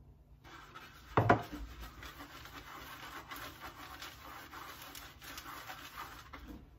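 Silicone pastry brush spreading melted butter over a thin pastilla sheet on a metal tray: a soft, repeated rubbing of stroke after stroke, with a single thump about a second in.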